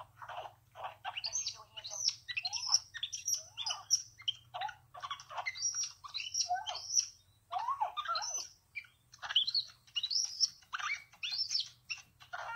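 Baby capuchin monkey chirping and squeaking in quick strings of high, mostly falling twitters, with short breaks between them: its excited greeting calls to its owner.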